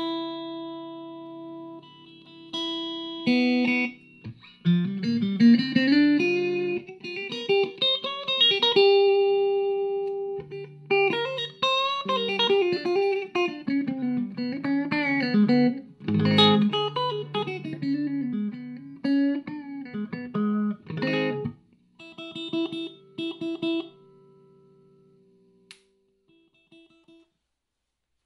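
Electric guitar played through a homebrew Matchless Lightning-style valve amp. It opens on ringing chords, moves into single-note lead lines with bends, and ends on chords that fade away.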